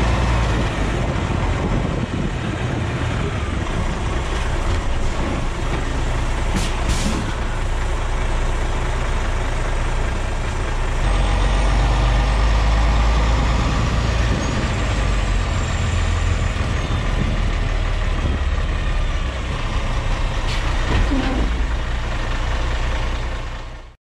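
MAN TGX truck's diesel engine running with a low rumble and tyre noise as it drives past close by, growing louder about 11 seconds in. Two short air hisses, typical of truck air brakes, come about 7 and 20 seconds in.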